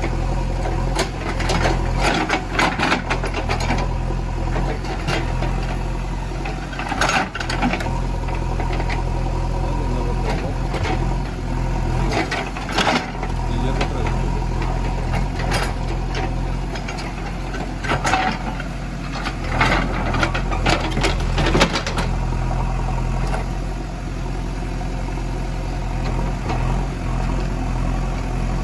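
Heavy diesel engine running steadily, with repeated knocks and rattles over it, in clusters about 2 s, 7 s, 13 s and from 18 to 22 s in.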